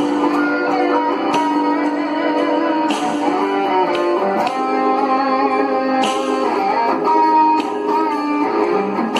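Electric guitar playing a blues lead with string bends and vibrato over a backing track with drums, the notes bending up and wavering.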